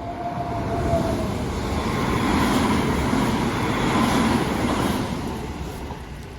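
Odakyu Line electric train passing: a thin, slightly falling whine in the first second, then rolling noise that swells to its loudest around the middle and fades toward the end.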